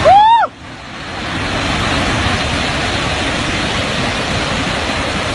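Loud, steady rushing noise of storm wind and surf, with a short cry at the very start.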